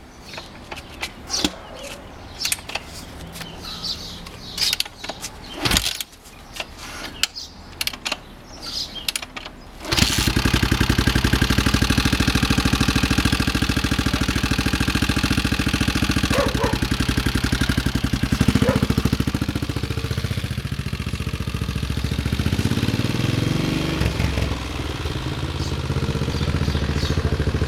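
Honda XR650R's single-cylinder four-stroke engine: several seconds of clicks and knocks, then about ten seconds in the engine fires and settles into a steady, evenly pulsing idle.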